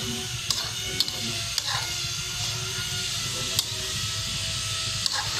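A metal spoon scraping and clicking irregularly against a wok as chicken pieces are stirred, over a steady sizzle from the chicken cooking in its juices. A faint steady hum runs underneath.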